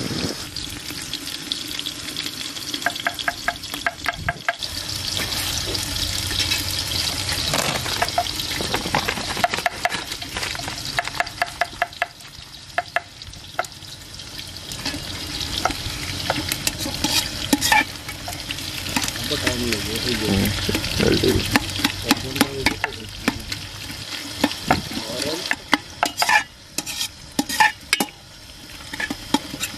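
Small whole onions sizzling in hot oil in an aluminium handi pot, with a metal spoon stirring them and clicking against the pot.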